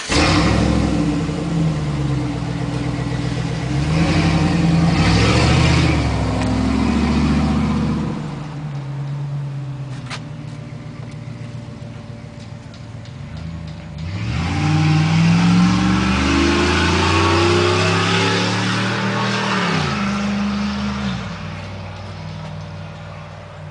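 Dodge Ram pickup engine running with the exhaust cut-out open, revving as the truck pulls away. It then accelerates through the gears, the pitch rising and dropping back at each shift, and fades away near the end.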